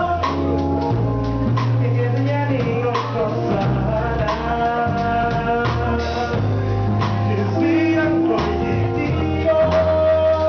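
Live band music: a man sings into a microphone over electric guitar and a bass line, with changing low notes and light regular percussion.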